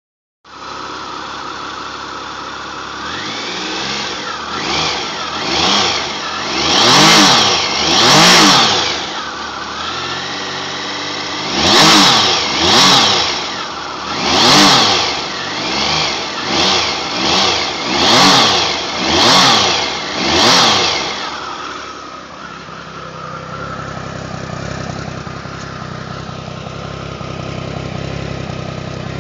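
2003 Triumph Tiger's three-cylinder engine idling, then blipped about a dozen times with short revs that rise and fall back, and settling back to a steady idle for the last several seconds.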